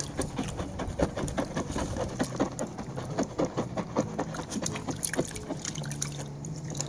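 Puppies wading and pawing in a shallow tub of water: a run of small, irregular splashes and sloshes.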